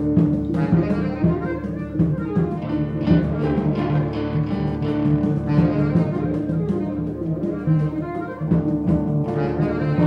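Improvised experimental jazz from a small band of electric guitar, keyboard, conga, percussion and reeds: held horn-like tones over frequent drum and percussion hits.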